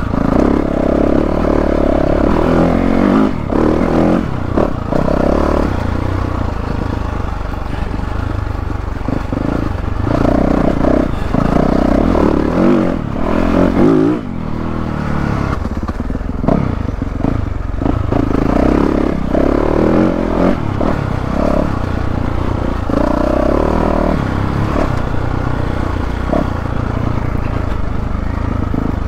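2022 Yamaha YZ450F's 450 cc four-stroke single-cylinder engine under way, revving up and easing off again and again as the dirt bike is ridden.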